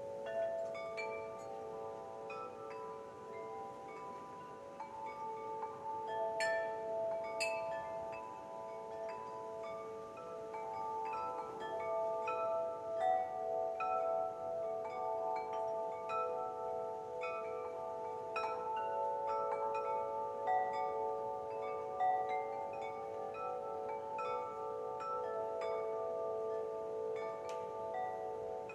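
Wind chimes ringing gently and continuously: many metal tones struck at random, overlapping and ringing on, with a few brighter strikes now and then.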